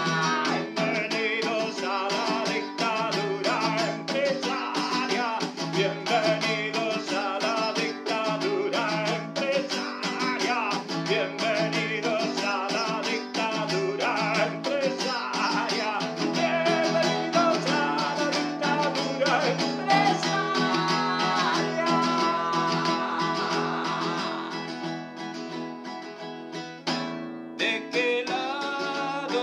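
Instrumental passage of a song, led by guitar, that drops in loudness a few seconds before the end and then picks up again.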